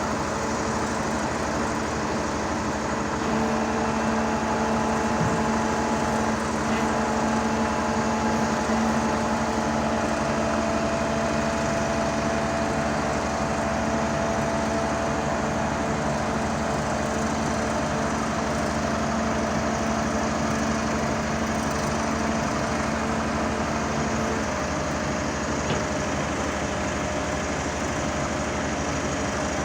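Hydraulic static pile driver's engine and hydraulic power pack running steadily, a continuous hum whose held tones change a few seconds in and again near the end, with no hammer blows.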